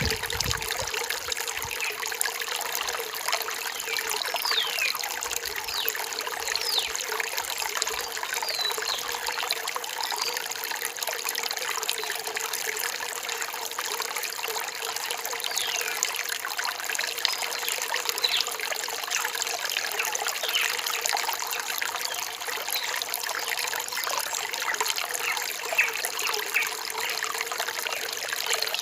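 Rain-forest stream trickling and splashing steadily over rocks, with faint, brief high bird chirps now and then above the water.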